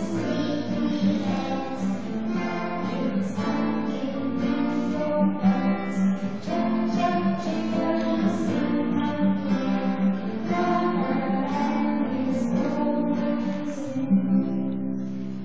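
A young girl singing a simple children's song to a plucked acoustic guitar accompaniment.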